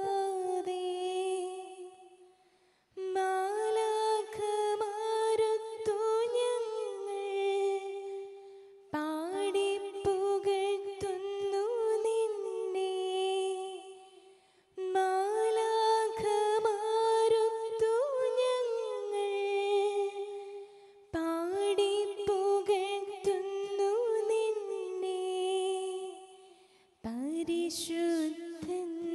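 A slow devotional melody sung by a single high voice, in long phrases of about five seconds each with short pauses between them.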